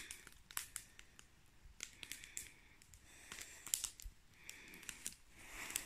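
Faint rustling and scattered light clicks, the sound of someone moving through the undergrowth and handling the camera while filming.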